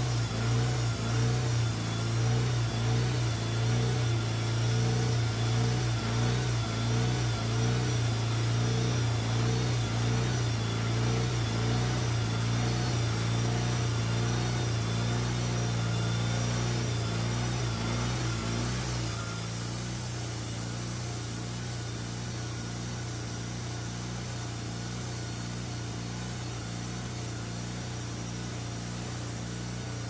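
Wood-Mizer LT40HD portable sawmill's gas engine running steadily with a throbbing drone. About two-thirds of the way through it drops to a quieter, steadier running.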